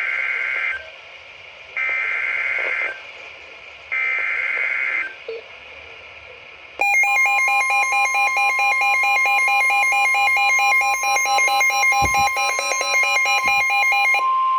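Emergency Alert System tones. First come three SAME digital data bursts, each about a second long and two seconds apart. About seven seconds in, a long, loud two-tone attention signal begins. Near the end only a single steady tone is left. The sequence marks the start of a new alert broadcast.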